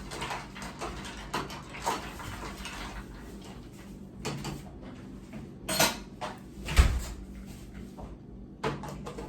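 Dishes and containers being handled in a kitchen: a run of separate clinks and knocks, with a heavier thump about seven seconds in.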